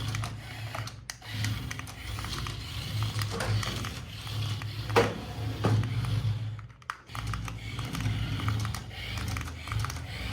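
Irregular light clicks and taps of hands handling plastic toy parts and packaging, over a steady low hum.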